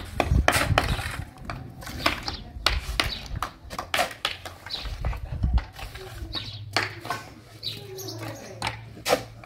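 Bricklaying trowels tapping and scraping on concrete blocks and wet mortar: a string of sharp, irregular knocks and scrapes.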